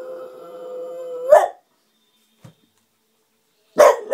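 French bulldog howling: a long, steady held note breaks off about a second in with a short, loud cry. After a pause, a new loud cry starts near the end.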